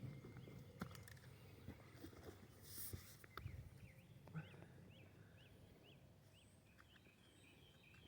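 Near silence outdoors, with a few faint knocks and a short chirp repeated about twice a second through the second half.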